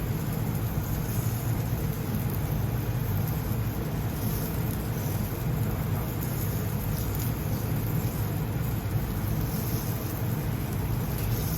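A gas grill running with a steady low rumble and hiss, while hamburger patties cooking over gas and charcoal sizzle with faint crackles.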